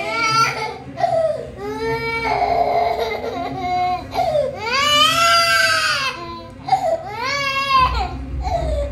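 A young child crying hard during a head shave, in several long, rising-and-falling wails broken by short breaths.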